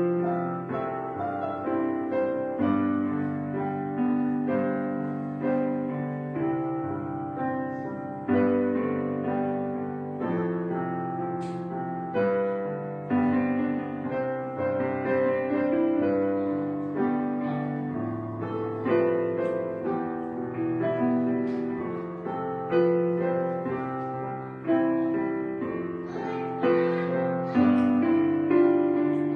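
Background piano music: chords and notes struck every second or two, each ringing and fading before the next.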